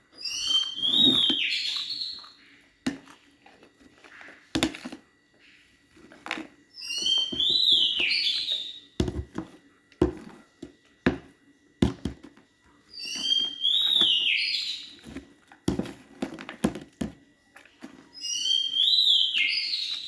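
A bird's whistled call: the same short, gliding phrase repeated four times, about every six seconds. Scattered short clicks and knocks fall between the calls.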